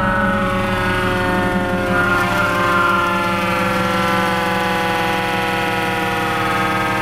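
Federal electromechanical siren winding down after being barely tapped on, its wail slowly and steadily falling in pitch.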